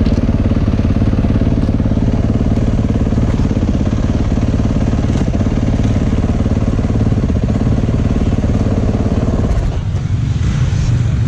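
A vehicle engine running at a steady speed, its note changing near the end.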